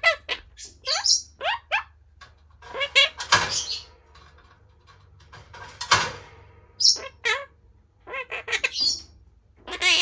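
Monk parakeet (Quaker parrot) calling in a string of short, quick rising chirps, broken by louder, harsh squawks about three and six seconds in.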